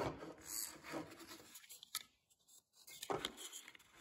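Fingers rubbing and tapping on a small plastic RC boat hull and its rudder linkage: faint handling noise with a few light clicks, going quiet for about a second in the middle.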